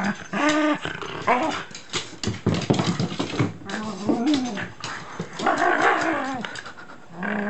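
Shiba Inu play-growling and whining in short bouts while playing with a roll of packing tape, with a run of sharp knocks between about two and three and a half seconds in.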